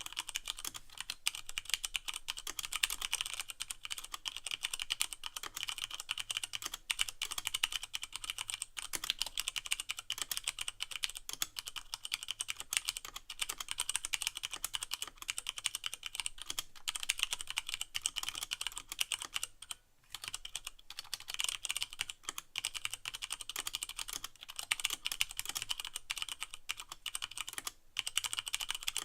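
Steady, rapid typing on a Leopold FC660M mechanical keyboard with Cherry MX Brown switches and no O-rings, a dense run of key strokes with the keycaps bottoming out unmuffled. The typing pauses briefly about twenty seconds in and again near the end.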